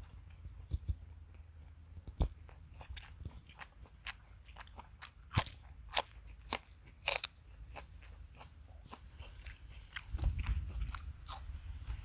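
Close-miked eating: crunchy bites into a raw spring onion and chewing, with the sharpest crunches in the middle. Near the end, low wind rumble on the microphone comes in.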